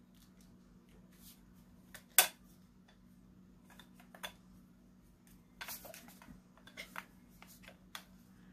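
Handling noises of unboxing an electric wine opener: the opener being lifted out of its plastic box tray and its plastic wrapping being handled, as scattered small clicks and rustles. A single sharp click about two seconds in is the loudest, and a cluster of rustling and clicks follows around six to seven seconds in.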